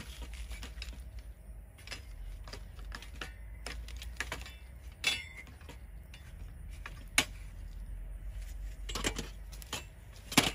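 A metal hand rake scraping and raking through loose soil, giving irregular clicks and scratches, with a few louder clinks, one about five seconds in ringing briefly.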